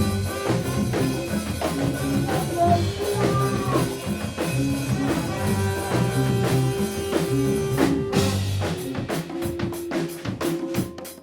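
Band music with a drum kit, a bass line and held melody notes. A little past eight seconds in, the drums change to a steady, quicker beat of sharp hits, about four a second.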